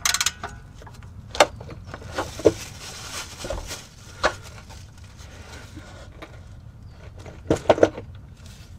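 Ratchet wrench clicking on the oil drain plug as it is worked loose: a quick run of clicks at the start, then single clicks spaced a second or two apart, and a tight cluster of clicks near the end.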